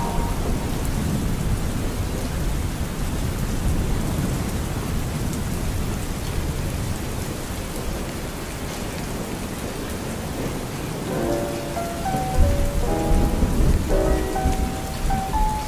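Steady rain falling, with a low rumble beneath it. About eleven seconds in, a soft melody of stepping notes comes in over the rain.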